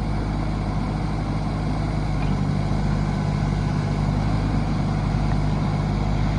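Diesel engine of a 2008 John Deere 17D mini excavator running steadily, a little louder from about two seconds in.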